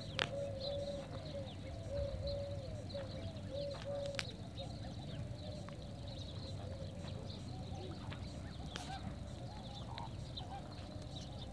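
Flock of water birds calling: a run of short, repeated honks over the first four seconds, then fainter calling, with a few sharp clicks.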